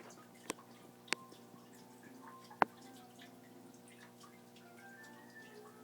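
Argentine tegu biting and chewing a chick: three sharp crunching clicks, the loudest about two and a half seconds in, over a faint steady hum.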